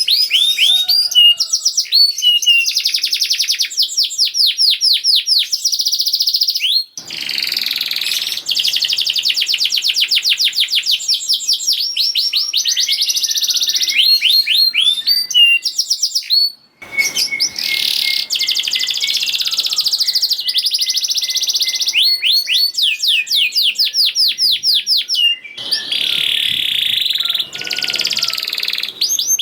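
Domestic canary singing a long, fast, dense song of rapid high trills and repeated chirping notes. There are two very short breaks.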